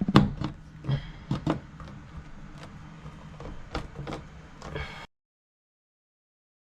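Sharp plastic clicks and knocks as an LED light strip is pushed into its ceiling mounting clips, over a low steady hum. The sound cuts off abruptly about five seconds in, leaving dead silence.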